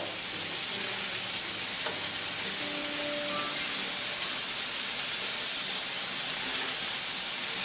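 Potato pieces sizzling steadily in hot rendered chicken fat and olive oil in a frying pan as they brown.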